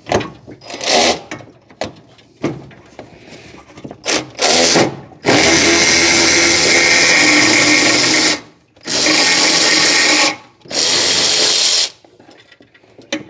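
Cordless ratchet motor running in two brief bursts, then three longer steady runs, the first about three seconds long, unbolting the radiator fan shroud.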